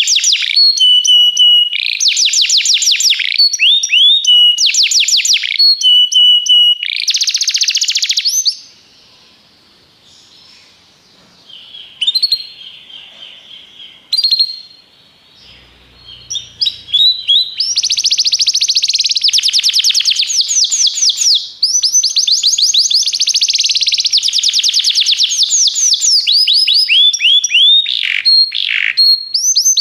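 Domestic canary singing: fast rolling trills and runs of repeated high notes in phrases. The song breaks off for a few seconds about a third of the way in, then resumes with a long unbroken run of trills.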